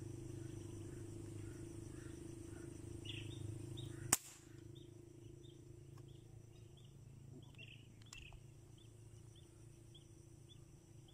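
A single sharp shot from an air rifle used for spearing fish, about four seconds in. Short high chirps repeat about twice a second, and a low steady hum runs through the first few seconds.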